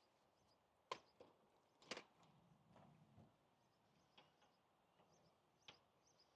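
A handful of sharp metallic clicks and knocks from hand tools, with the two loudest about one and two seconds in: sockets being tried on the brake caliper bolt to find which size fits.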